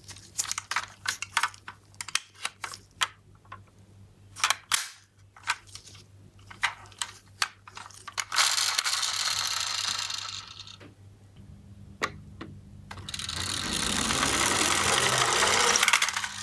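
Die-cast toy minicars clicking and clattering as they are handled and knock against each other and the box. Twice a minicar makes a longer rolling rush, as toy wheels do on a slope; the second rises as it goes and stops suddenly near the end.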